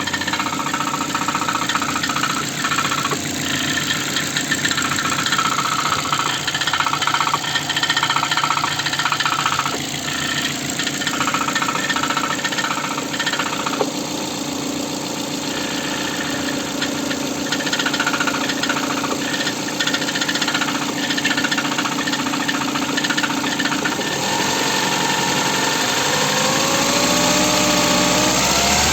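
Ford car engine running with a fast, steady knock in time with the engine, the engine knock this recording is made to show. Over the last few seconds the revs rise and the knock goes on.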